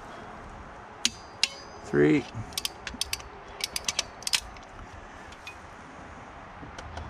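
Ratchet head of a Tekton click-type torque wrench turning a cylinder-head bolt to 44 ft-lb. There are two sharp clicks about a second in, then a run of quick, light pawl clicks as the bolt is ratcheted down, and a few single clicks near the end.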